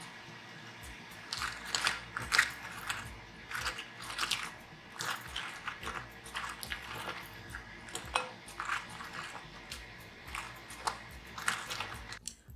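A person biting into and chewing crispy fried BBQ chicken wings: repeated irregular crunches and crackles of the fried crust.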